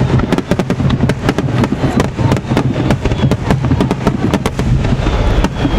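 Fireworks grand finale: a rapid, continuous barrage of shell bursts and sharp crackles over a steady low rumble.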